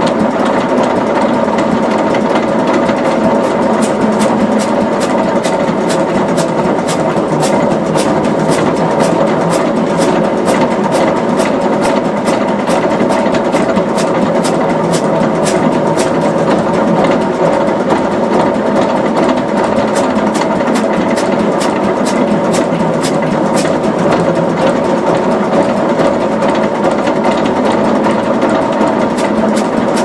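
Aveling Barford DY road roller's diesel engine running steadily at a raised throttle while its air pump refills the starting-air receiver, with a regular ticking over the engine note for most of the time.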